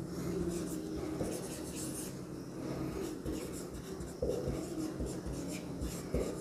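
Marker pen writing on a whiteboard: a run of short, faint scratchy strokes as letters are written, over a steady low hum.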